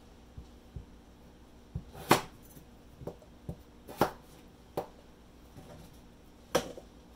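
Chef's knife cutting baking potatoes on a plastic cutting board: a series of irregular knocks as the blade comes down on the board, the loudest about two, four and six and a half seconds in.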